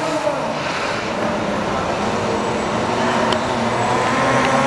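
Electric youth ATV running around a cone course, its motor whine shifting and rising with speed.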